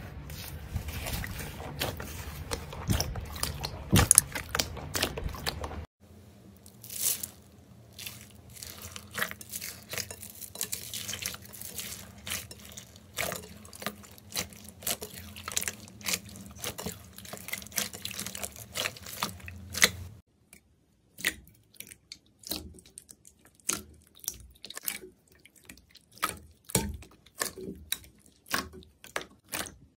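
Hands squeezing and kneading slime, giving wet, sticky clicks and pops as trapped air is pressed out. About six seconds in it changes to clear slime mixed with foam beads, and about twenty seconds in to a clear slime with sparser, sharper pops.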